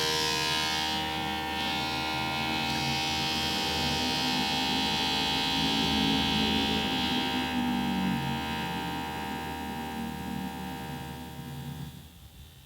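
DVD drive spinning a disc, a steady motor hum and whir with a high hiss. It slowly grows quieter toward the end, then drops away abruptly.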